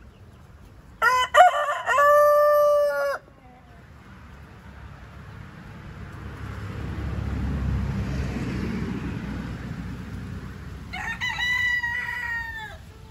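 Roosters crowing in a crow-off: one loud crow about a second in, and an answering crow with a different pitch from another rooster near the end. A low rushing noise swells and fades between the two crows.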